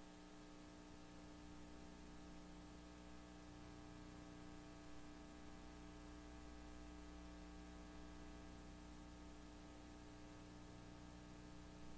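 Near silence: a steady electrical hum with faint hiss.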